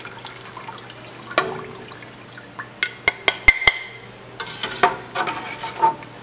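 Whey dripping and splashing as cheese curds are lifted out of it with a metal slotted spoon, with a few sharp clinks of the spoon against the dishes about halfway through.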